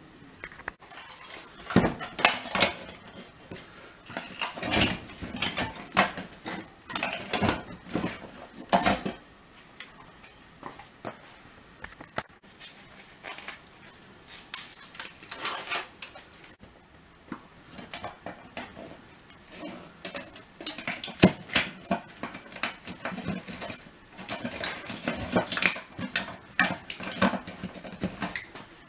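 Thin sheet-metal recessed light can being handled and taped up with gloved hands: irregular clusters of light metallic clinks, knocks and rattles, with quieter pauses in between.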